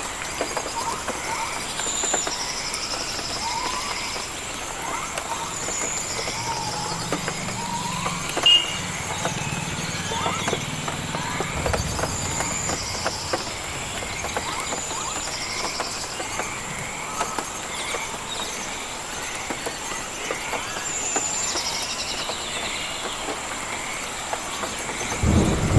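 Rainforest ambience: a steady high insect drone over an even hiss, with short bird and insect chirps repeating every second or two. A low rumble comes in around the middle and again, louder, near the end.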